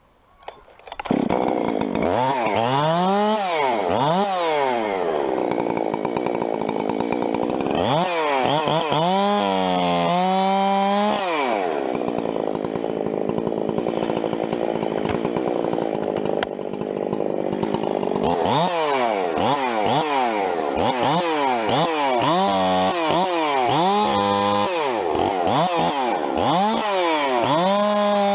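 Two-stroke chainsaw starting up about a second in, then revved up and down again and again, its pitch rising and falling with each blip of the throttle. Near the end it is held at full throttle as the bar goes into a small tree.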